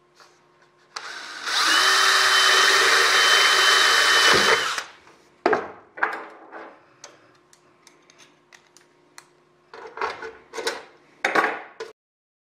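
Cordless drill running for about four seconds as it drills a hole through the thin aluminum aileron nose skin, its motor whine held steady until it stops. After that come a few sharp metal clicks and clatters from handling the parts, and the sound cuts off to silence near the end.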